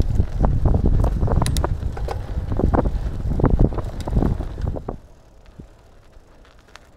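Mountain bike riding fast over a rough dirt trail: wind rumbling on the microphone, with rapid knocks and rattles from the bike and the neck-hung camera jolting over bumps. About five seconds in the noise drops suddenly to a quiet roll.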